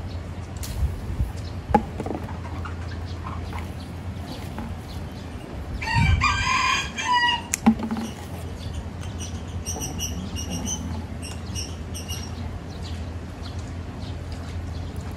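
A rooster crows once for about a second and a half, about six seconds in, over a steady low hum. A few sharp snips of scissors cutting fruit off a calamansi bush.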